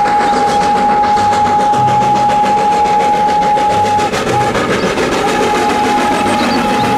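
Steam locomotive (a full-size Thomas the Tank Engine replica) running with its whistle blowing one long steady note, broken off about four seconds in and then sounding again, over the loud rumble of the moving train.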